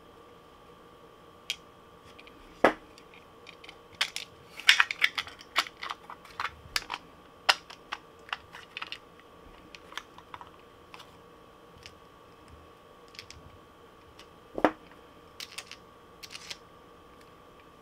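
Irregular sharp clicks and taps from handling a 3D-printed plastic lure body and a wire hook eye, with round-nose pliers working the wire. A busy run of clicks comes about four to nine seconds in, with single louder knocks about three seconds in and near fifteen seconds.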